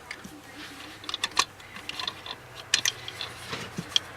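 Irregular light clicks and taps of hands working plastic ignition parts, the distributor cap and rotor being fitted.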